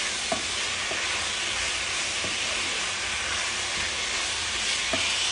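Raw diced chicken sizzling steadily in hot olive oil in a nonstick pan over high heat, stirred with a wooden spoon that gives a few light knocks against the pan.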